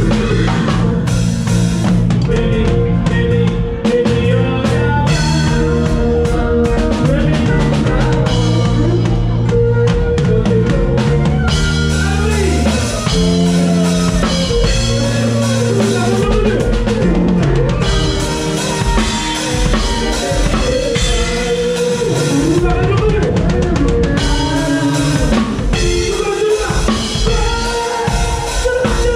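Live soca band music, with the drum kit close and loudest, kick and snare driving the beat over a shifting bass line.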